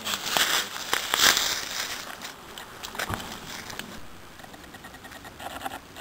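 Dry leaf litter crackling and crunching under footsteps, loudest in the first second and a half, then fading.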